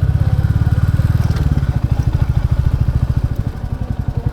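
Royal Enfield Classic 350's single-cylinder engine idling with an even, rapid beat, a little fuller for the first second and a half before settling.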